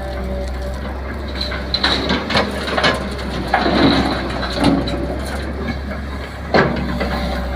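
JCB 3DX backhoe loader's diesel engine running steadily, with a series of irregular crunching and cracking knocks from its bucket working material, the sharpest one near the end.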